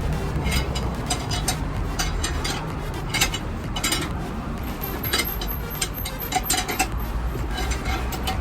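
Repeated metallic clinks and taps of hand tools working on a car tire, irregular, over a steady low rumble of road traffic.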